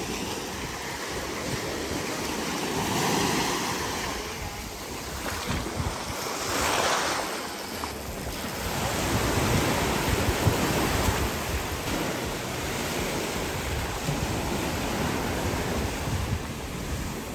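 Ocean surf washing onto a beach, swelling and easing as waves break, with one fuller wash about seven seconds in. Wind buffets the microphone.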